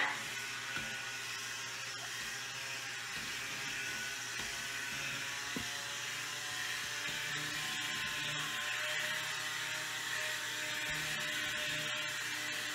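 Electric stick blender switching on and running steadily, its motor whirring as it churns a pot of goat milk, oil and preservative mixture to thicken it into lotion.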